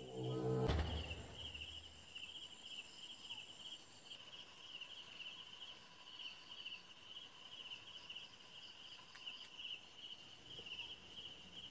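Crickets chirping in a steady, pulsing trill, with a brief low rumble in the first second.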